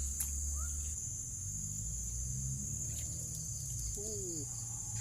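Steady high-pitched buzz of an insect chorus, with a sharp click just after the start and a short falling call about four seconds in.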